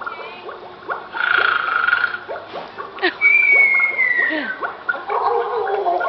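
The Mystic Fountain's recorded snoring played through its speakers. A rattling snore comes about a second in, then a whistle that falls in pitch on the out-breath, from about three to four and a half seconds in.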